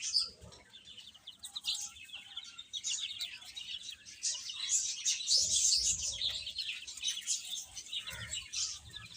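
A brood of baby chicks peeping continuously, many short high-pitched chirps overlapping.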